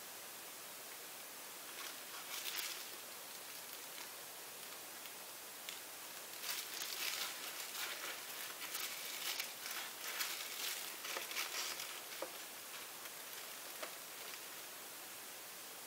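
Crinkly rustling of loose plastic disposable gloves as gloved hands handle a canvas, in a short burst about two seconds in and a longer run from about six to twelve seconds in, over a faint steady hiss.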